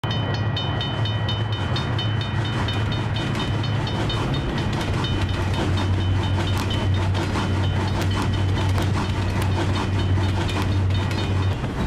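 A train rolling past with a steady low rumble, while a level-crossing bell rings quickly and evenly, several strokes a second.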